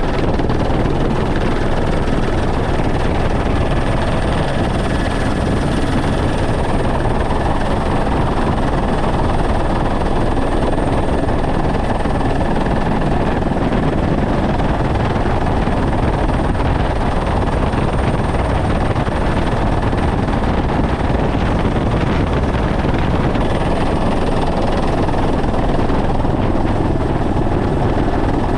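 Helicopter in flight heard from inside the cabin: loud, steady rotor and engine noise with rushing air, and a faint thin high whine held over it throughout.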